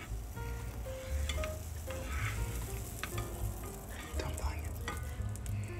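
Butter sizzling as it melts in a hot nonstick frying pan, with a plastic spatula scraping and pushing it around the pan, over a low steady hum.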